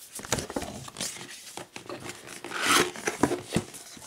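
Cardboard graphics-card retail box handled and opened by hand: rustling, rubbing and small taps of cardboard, with a longer, louder scrape about two and a half seconds in.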